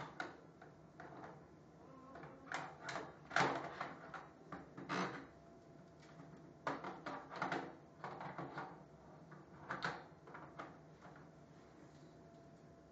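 Plastic corded desk telephone being handled: scattered clusters of clunks and clicks as the handset knocks about and keypad buttons are pressed.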